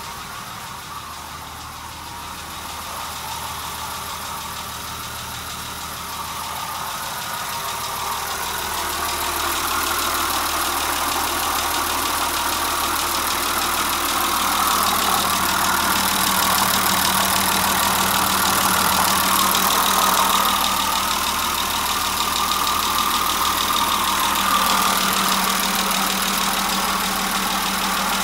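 Nissan TD42 4.2-litre inline-six diesel engine idling steadily, growing louder about eight to ten seconds in.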